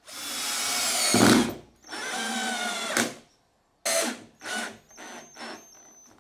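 Cordless drill driving wood screws into countersunk holes in a wooden block. It makes two long runs with the motor pitch climbing, then a few short bursts as the screw heads are snugged down flush.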